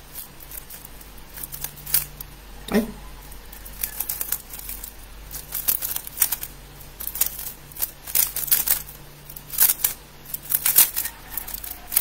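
A 3x3 speed cube being turned rapidly in a timed solve: fast, irregular plastic clicks and clacks as the layers snap round.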